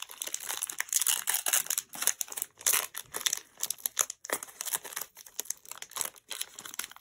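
Foil wrapper of a Pokémon card booster pack crinkling and crackling in the hands as it is torn and peeled open, in quick irregular bursts.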